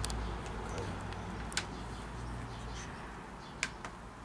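Light clicks of metal barbecue utensils, tongs and wire grill baskets, being handled: three short ticks about two seconds apart, over a low steady hum.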